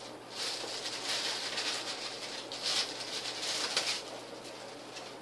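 Clear plastic bag crinkling and rustling as it is handled and opened, dying down about four seconds in.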